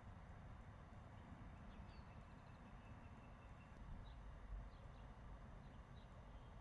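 Near silence outdoors: a faint low wind rumble on the microphone with faint bird chirps, including a quick run of short high notes about two seconds in.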